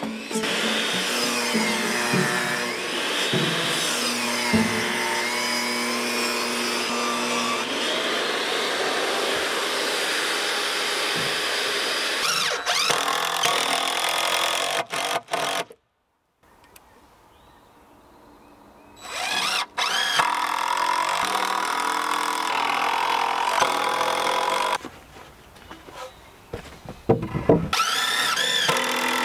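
Cordless drill driving screws into wooden stair tread boards, its motor pitch rising and falling with the trigger. It runs in long stretches, breaks off abruptly about halfway through and starts again, with a few short bursts near the end.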